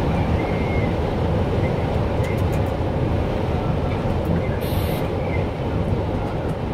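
Steady engine and tyre noise inside a vehicle cruising at motorway speed, deep and even, with a brief hiss about four and a half seconds in.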